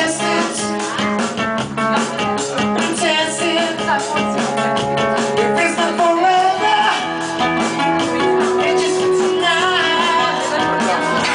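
A live band playing: a singer over drums and guitar, loud and continuous.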